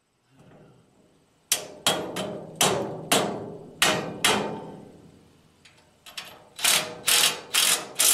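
Cordless impact driver fastening the bolts of a trailer-ball coupler onto a steel lawn-cart tongue, in short trigger bursts that ring through the steel. About seven sharp hits come in the first half, then a quicker run of five near the end.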